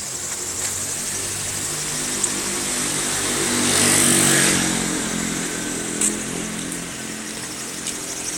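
Toyota Vios engine running with a high hiss-like belt noise over its hum, briefly rising in speed about four seconds in and then settling back. The drive belt's abnormal noise persists even after about a year of dealer repairs.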